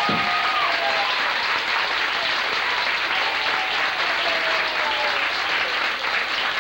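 Audience applauding, a steady dense clatter of many hands, with a few drawn-out calls over it.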